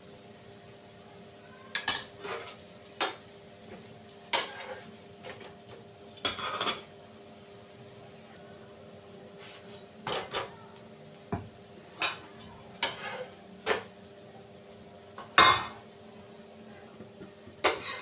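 Metal spatula scraping and clinking against flat griddles (tawas) as parathas are pressed and turned while they roast, in irregular strokes with the loudest clatter about two-thirds of the way through.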